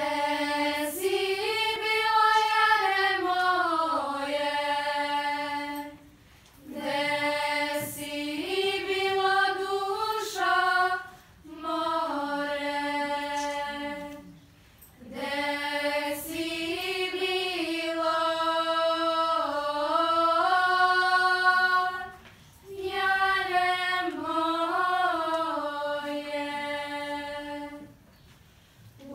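Girls' choir singing a Serbian traditional song unaccompanied, in long held phrases broken by short breathing pauses.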